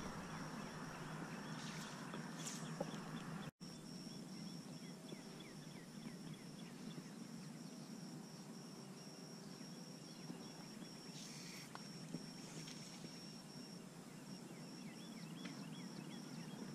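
Faint outdoor ambience over open water: a soft haze of wind and water noise, a high steady insect trill and a few faint bird chirps. The sound cuts out for an instant about three and a half seconds in.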